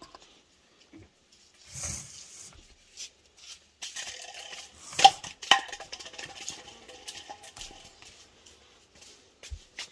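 Metal spoon scooping and spreading cream across a cake layer on a dish, with soft scraping and small knocks. Two sharp clinks of the spoon against the dish about five seconds in, each with a brief ring.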